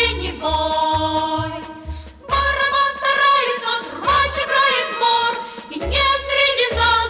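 A recorded pop song: a melody over a steady bass beat of about two beats a second, with a short drop in level around two seconds in.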